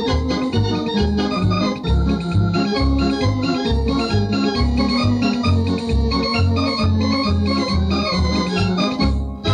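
Thomas electronic organ playing an up-tempo piece from an old cassette recording, with held chords over a bouncing pedal bass of about two notes a second. The music breaks off briefly near the end.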